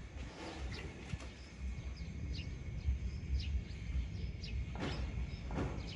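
Outdoor ambience: a steady low rumble with scattered short, high bird chirps, and a couple of brief rustles near the end.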